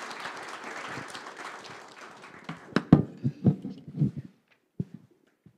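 Audience applauding, the clapping thinning out and stopping about two and a half seconds in. Then a quick run of loud, dull thumps and knocks, followed by a few faint clicks.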